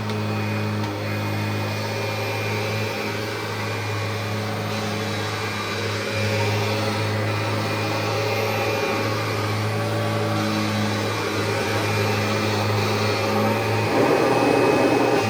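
1990 Kirby Generation 3 upright vacuum, with a nylon fan, running steadily while vacuuming carpet: a constant motor hum with an airflow rush, swelling louder about fourteen seconds in.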